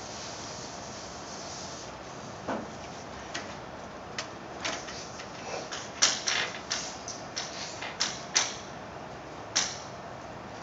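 Chalk writing on a blackboard: a run of sharp taps and short scratches as the chalk strikes and drags across the board, most frequent from about six seconds in.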